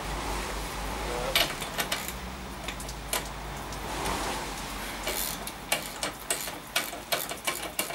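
Ratchet wrench clicking as it turns the screw of a scissor jack under a motorbike. A sharp knock comes a little over a second in, and a fast run of clicks fills the second half.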